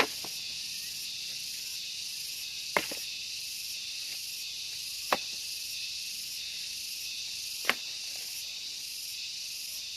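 Insects chirring steadily at a high pitch, with four sharp snaps spaced about two and a half seconds apart.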